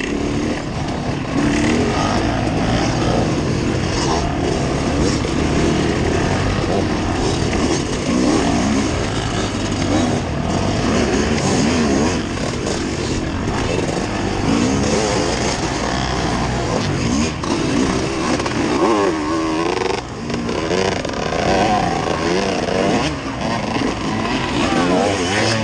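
Off-road vehicle engine running continuously, its pitch rising and falling as the throttle is worked on and off over rough, rocky ground.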